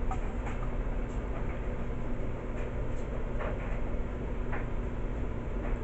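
A few faint clicks and taps from a small plastic camcorder being handled, over a steady low hum.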